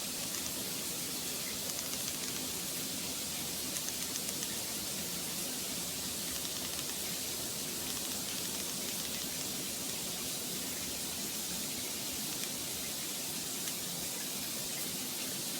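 Steady background hiss, even and unchanging, with a few faint ticks in the first few seconds.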